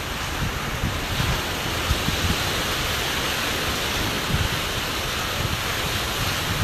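Wind buffeting the microphone: a steady rushing noise with irregular low gusty thumps.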